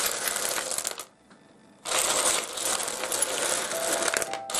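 Pieces of rough seam opal clicking and clattering against one another as fingers stir through a pile of them. The rattling stops for under a second about a second in, then picks up again.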